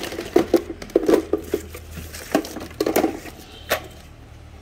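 Hard plastic clattering and knocking as power-tool battery chargers are handled and set down, a quick run of sharp clicks and knocks that thins out near the end.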